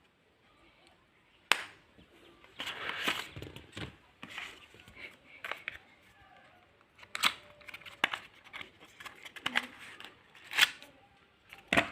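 Hands handling earbud packaging: rustling and scraping with scattered sharp clicks, one sharp click about a second and a half in.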